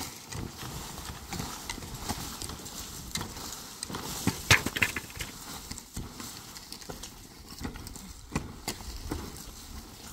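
Picks and a shovel breaking up a packed-earth roof: irregular knocks and dull thuds as the blades strike the hard earth, with scraping of loosened soil and rubble. A louder cluster of strikes comes about halfway through.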